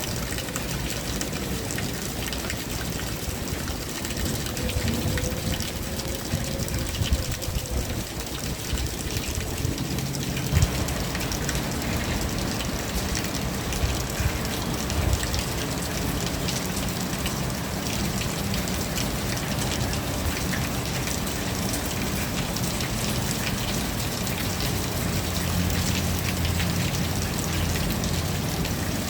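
Rain falling steadily, an even hiss with scattered drops hitting surfaces. A low rumble sets in underneath about a third of the way through.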